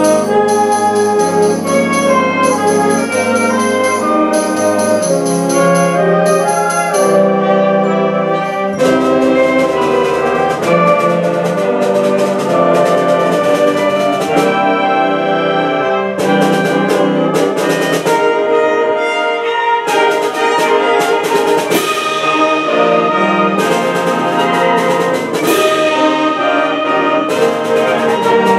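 Middle school concert band playing a fanfare: brass and woodwinds in sustained, changing chords, with percussion strokes joining about nine seconds in.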